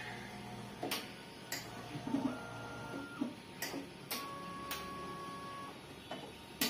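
Mindray BC-2600 hematology analyzer working through its cycle while preparing to count red blood cells. About six sharp valve clicks are spaced unevenly through the cycle, with two short steady motor whines in between, the first about two seconds in and the second about four seconds in.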